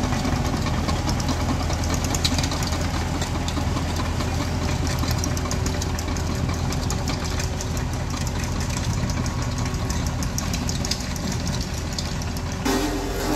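Caterpillar crawler dozer running steadily as it tracks slowly across loose dirt, its diesel engine humming under a dense clatter of knocks from the steel tracks. Near the end a different, tonal sound cuts in.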